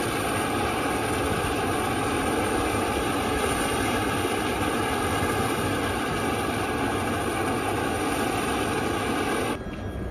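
Airbus A400M turboprop transport aircraft's turbines running steadily close by: a loud, even roar with several steady whining tones. It cuts off suddenly near the end.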